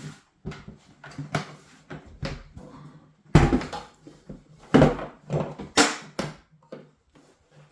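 Handling of a sturdy tool box: a series of knocks and thumps as it is turned over and moved, the heaviest about three and a half seconds in.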